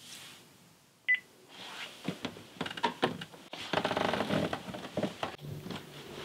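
A single short electronic beep from a cordless phone's keypad as the call is ended, about a second in, then rustling of bedding and clothing with small knocks as a person settles back onto a bed.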